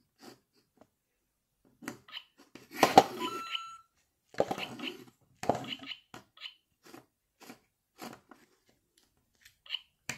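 LEGO Super Mario interactive figure being handled: scattered plastic clicks and knocks. About three seconds in, a short electronic beep comes from its speaker.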